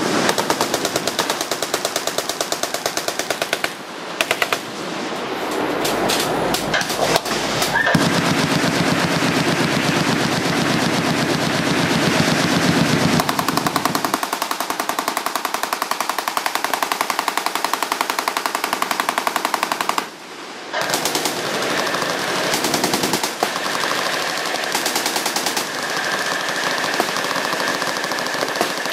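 Many machine guns firing at once in long, overlapping bursts of automatic fire. The fire dips briefly a few seconds in and almost stops for a moment about two-thirds of the way through, then resumes.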